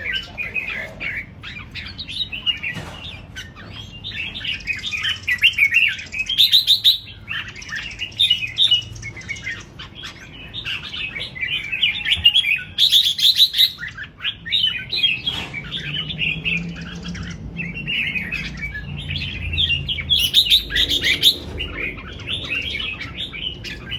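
Red-whiskered bulbul singing: quick, chattering warbled phrases that run almost without a break.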